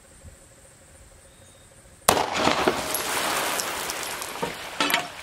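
A single 9mm pistol shot about two seconds in, followed by water splashing and gushing out of the glass aquarium it has broken, with a couple of sharp knocks near the end.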